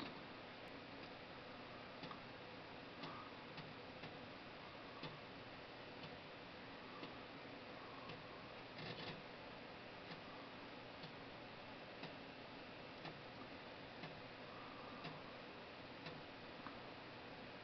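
Faint, irregular ticks and light clicks over a steady hiss.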